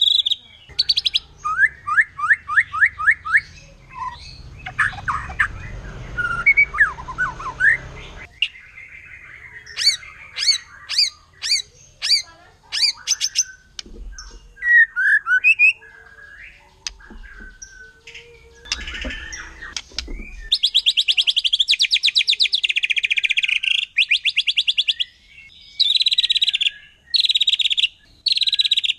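White-rumped shama (murai batu) singing a varied song of whistled phrases, opening with a run of about eight quick rising notes. In the second half it switches to bursts of very fast repeated notes, the rapid-fire 'tembakan' that stirs up rival shamas.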